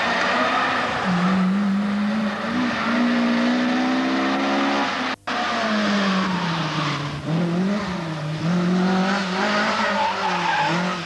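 Racing car engine pulling hard, its revs climbing steadily, then dropping and rising again through gear changes and braking, with tyres squealing. The sound cuts out for an instant about five seconds in.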